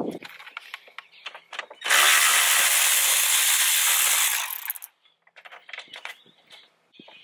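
Cordless electric ratchet spinning a socket for about two and a half seconds, then winding down, as it backs out a 10 mm bolt holding the radiator fan. Light clicks of the tool and socket being handled come before and after.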